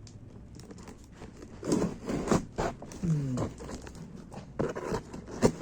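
Heater's cardboard box and packaging being opened by hand: a run of rustles, rips and knocks starting about a second and a half in, with a brief falling squeak around the middle.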